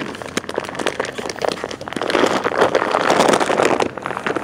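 Large plastic bag of Purina puppy food crinkling and crackling as it is handled right against the phone, a dense run of sharp crackles that is loudest in the second half.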